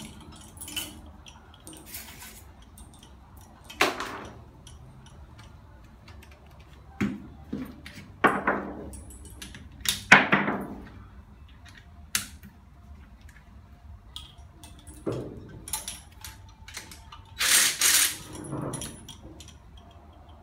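Scattered metallic clanks, knocks and clinks of tools and engine parts being handled during engine disassembly, with a longer, louder clattering noise about three-quarters of the way through.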